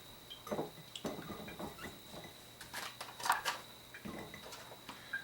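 Scattered light knocks and clicks of whole hot peppers being handled and pushed into a packed container of pickling vegetables, with a couple of sharper taps around three seconds in.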